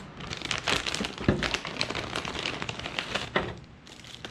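Packaging being handled as a camera kit is unpacked: paper and plastic rustling and crinkling in a series of irregular crackles and small knocks, busiest in the middle and thinning out near the end.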